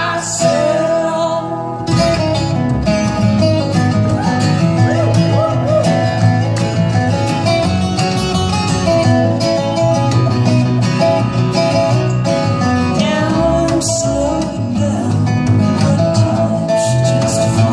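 Live acoustic folk-band music in an instrumental break: rhythmically picked acoustic guitar over a bass line, with a held melody line on top.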